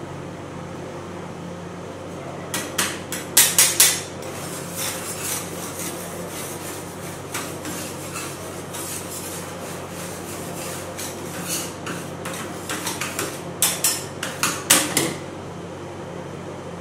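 Metal ice-cream-roll spatulas clacking and scraping on the frosted steel cold plate, scraping off frost: a quick run of sharp clacks a few seconds in, rough scraping through the middle, and another run of clacks near the end, over a steady low hum.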